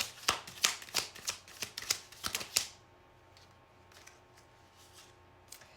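Tarot cards being shuffled: a quick, irregular run of sharp card snaps and clicks for about the first two and a half seconds, then only a few faint ticks.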